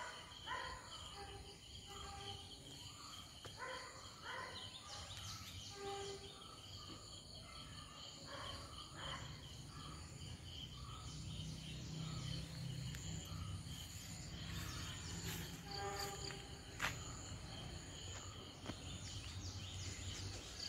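Quiet outdoor garden ambience: a steady high insect drone with scattered faint chirps and a low background rumble, and a single sharp click late on.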